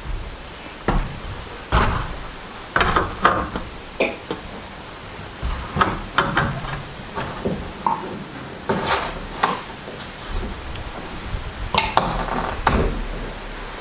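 About a dozen scattered knocks and clunks at uneven intervals, with some rustling between them, from a person climbing a stepladder and handling things at the top.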